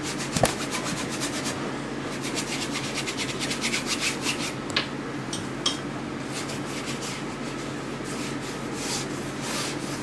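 Paintbrush scrubbing oil paint onto a stretched canvas in quick repeated strokes, a dry rubbing scratch of bristles on the canvas. A small knock comes about half a second in.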